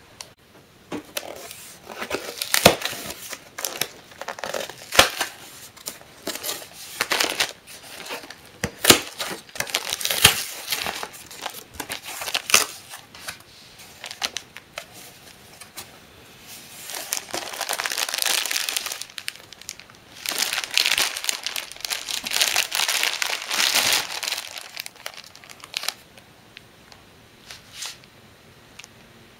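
A cardboard case being opened by hand, with sharp snaps and rips. This is followed by the plastic shrink-wrap around packs of instant ramen crinkling loudly in two long stretches in the second half.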